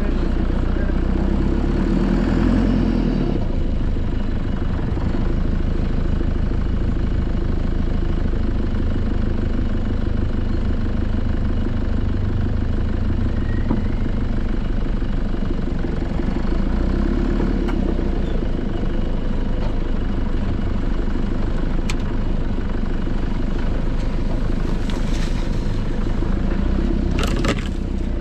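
Nissan Patrol Y61 engine running at low speed with a steady drone as the 4x4 crawls along a rutted dirt track. A few short clatters come in the last few seconds.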